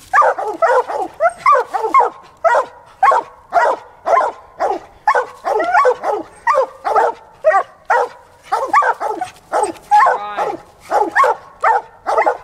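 English coonhound barking treed, a fast, unbroken chop of barks about two to three a second while it stands reared up against the tree trunk. This is the sign that its quarry, a raccoon, has been run up the tree.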